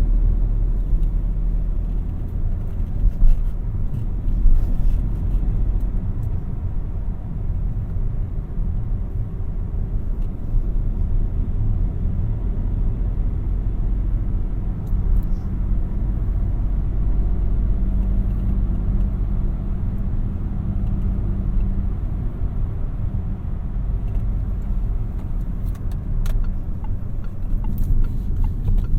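A 2017 Peugeot 3008 being driven, its 1.2-litre three-cylinder PureTech turbo petrol engine running at steady speed under a low road and tyre rumble, with a couple of brief thumps a few seconds in.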